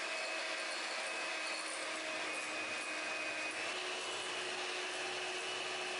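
Electric hand mixer running steadily, its twin beaters beating an egg into creamed butter and sugar. Its motor whine steps up slightly in pitch about three and a half seconds in.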